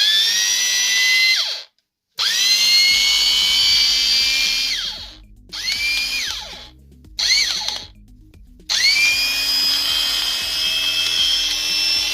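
A Bosch angle grinder is switched on and off about five times in short test runs. Each run spins up with a rising whine, holds steady, and winds down. It is running on newly fitted gears in place of the worn ones, and it sounds different now.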